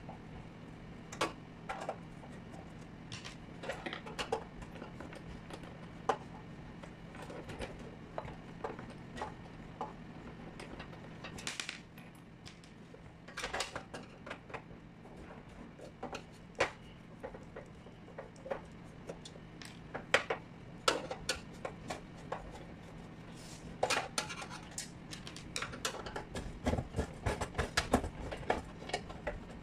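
Screwdriver clicking and scraping on the screws and sheet-metal housing of a 1K dimmer light, in scattered light metallic clinks that come thicker in the second half, over a low steady hum.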